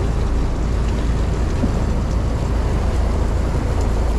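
Steady low rumble of a boat's engine running, with wind noise on the microphone.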